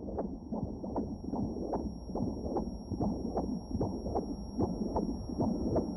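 A fetal heartbeat in the womb: fast, regular whooshing pulses, about two and a half a second, over a low steady rumble.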